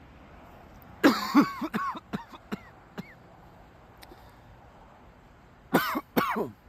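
A man coughing in fits. Two loud coughs come about a second in and trail off into smaller coughs, then two more loud coughs come near the end.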